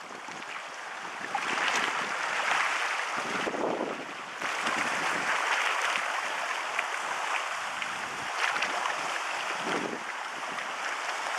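Sea waves washing and breaking, the noise swelling and easing in surges every few seconds.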